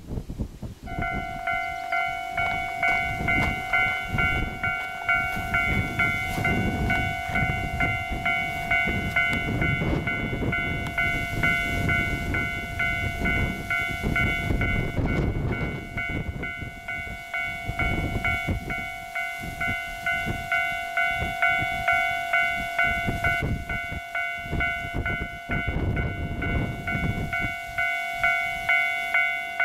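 Level-crossing warning bell starting about a second in and ringing steadily in a fast repeating ding, over wind rumble.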